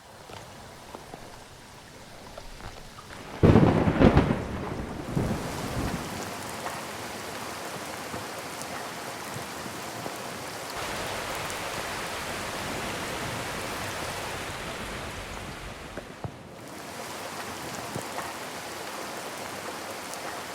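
Steady rain falling, with a loud clap of thunder about three and a half seconds in and a smaller rumble a couple of seconds later.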